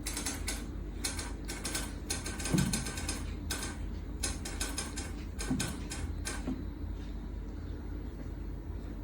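Bursts of rapid, ratchet-like clicking and rattling over a steady low hum; the clicking stops about two-thirds of the way through, leaving only the hum.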